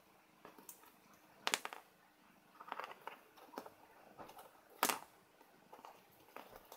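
Scattered light clicks and scratches as a cat paws at a stag beetle on a wooden floor, with two sharper knocks, about a second and a half in and again about five seconds in.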